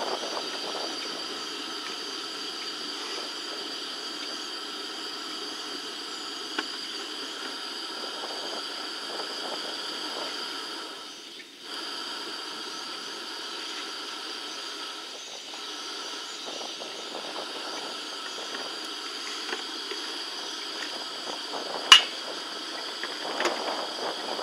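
Steady outdoor hiss with two constant high-pitched whines, broken by a brief dip in level about halfway through and a single sharp click near the end.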